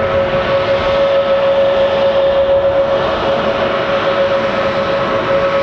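Airbus A321neo's Pratt & Whitney PW1100G geared turbofan engines running at taxi power: a loud, steady whine with one strong held tone over a rushing hiss.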